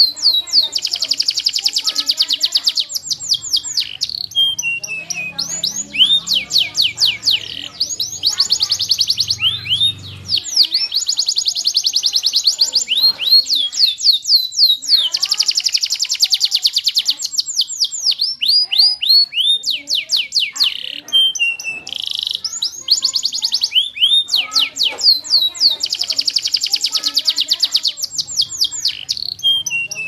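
Domestic canary singing a long, fast song of rapidly repeated downward-sweeping notes and trills, several notes a second, broken by a couple of short pauses.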